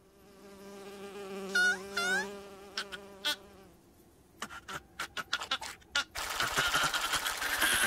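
Cartoon fly buzzing steadily, with two quick rising squeaks about one and a half and two seconds in. A louder, noisier stretch takes over near the end.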